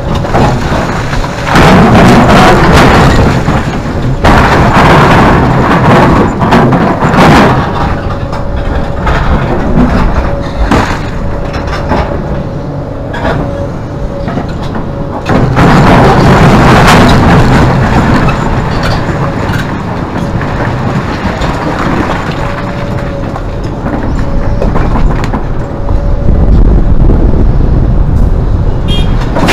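Hidromek 390 excavator at work loading a truck, its six-cylinder Isuzu diesel running steadily with several louder stretches of rumbling and sharp knocks as the machine works under load.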